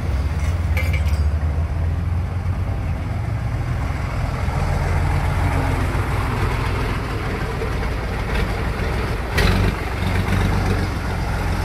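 Large truck engine idling steadily close by, with one short thump about nine seconds in.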